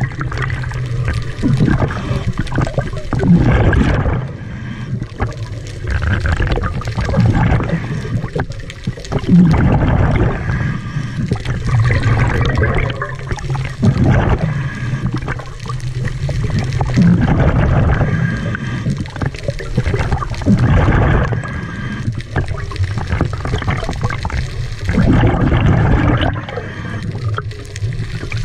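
Scuba diver breathing through a regulator underwater: an inhale hiss and a gush of exhaled bubbles, repeating every few seconds.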